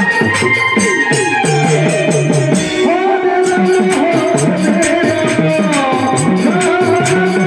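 Instrumental passage of Indian devotional kirtan music: a keyboard melody over hand drums with bending bass notes and a steady rattling percussion beat.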